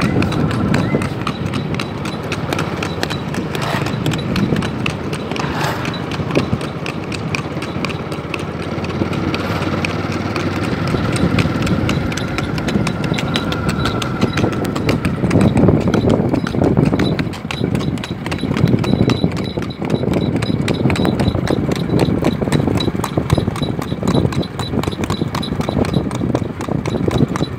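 Horse's hooves clip-clopping on a paved road in a quick, even rhythm as the ridden horse moves at a brisk gait.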